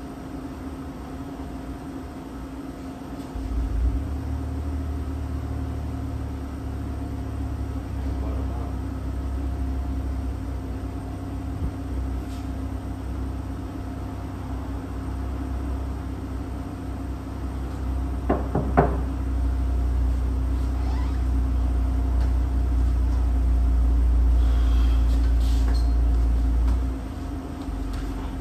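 A steady low machine rumble starts with a thump a few seconds in and cuts off shortly before the end, over a constant hum, with a few clicks about two-thirds of the way through.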